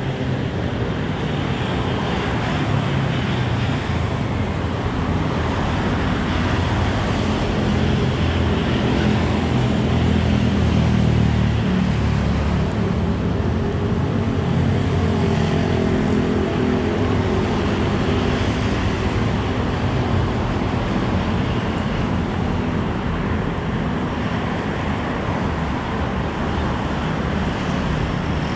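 Road traffic: steady vehicle engine and tyre noise, with an engine growing louder and then easing about eight to sixteen seconds in.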